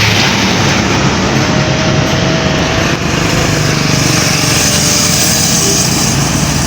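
Road traffic passing close by: vehicle engines running loud and steady, with a continuous rumble.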